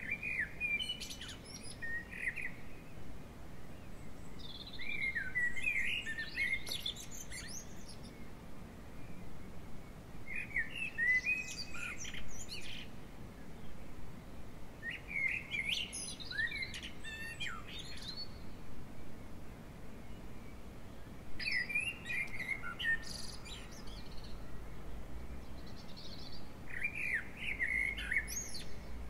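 A songbird singing short, twittering phrases of quick high notes, each one to two seconds long and repeated about every five seconds.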